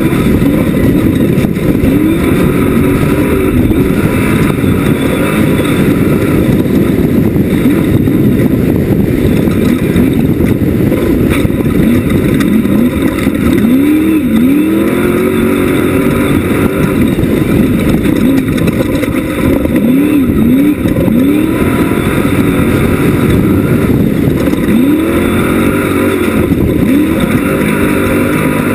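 Class 1 off-road race buggy driven hard, its engine running loud under a heavy rumble and revving up in rising sweeps several times as it accelerates.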